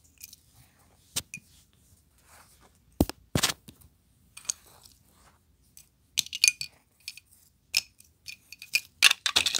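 Small plastic toy food pieces clicking and clacking as they are handled and set into a plastic toy refrigerator: scattered light taps, two louder knocks about three seconds in, and a quick run of clicks near the end.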